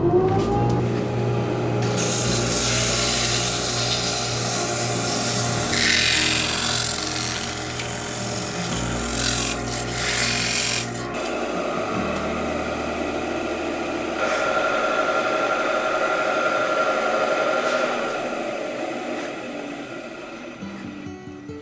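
Wood lathe motor winding up to speed, then running steadily while sandpaper is held against the spinning wooden bowl, a rubbing hiss of sanding over the motor's hum. The sound fades near the end.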